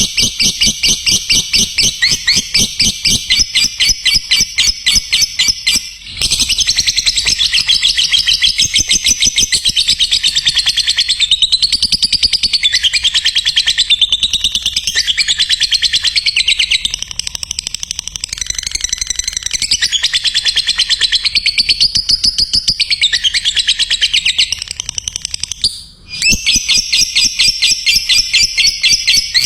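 Lovebird singing a long 'ngekek' chatter: a fast, unbroken stream of high chirping notes, many per second, pausing briefly about six seconds in and again near the end.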